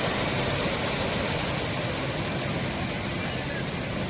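Sea surf washing in a steady, even rush of noise.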